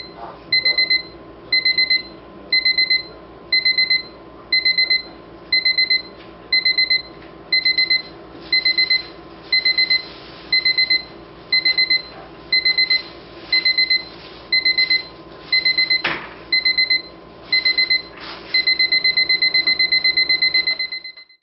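Rhythm LCD electronic alarm clock's alarm beeping: high electronic beeps in quick groups of about four, roughly one group a second, changing near the end to continuous rapid beeping. A single knock about sixteen seconds in.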